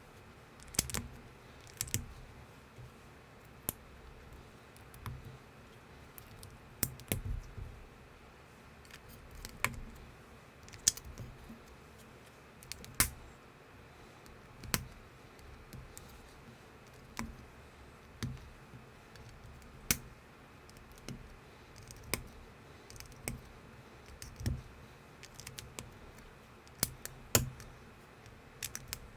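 Plastic LEGO-compatible building bricks being handled and snapped together by hand: irregular sharp clicks, spaced about a second or two apart, with softer rattling of pieces between them.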